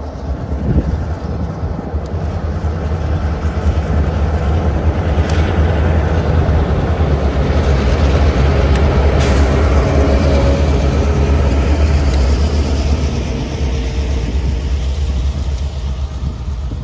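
Diesel locomotives running light pass close by: a deep, steady engine rumble that builds to its loudest in the middle and fades near the end, with a few sharp clicks.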